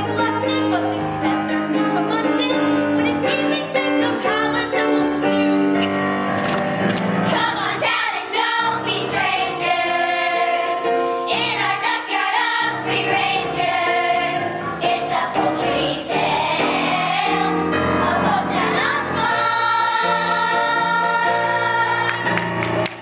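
Musical theatre cast singing an ensemble number in chorus, with instrumental accompaniment.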